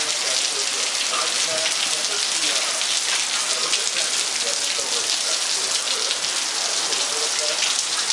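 Steady rain falling and pattering on surfaces, an even dense hiss of drops.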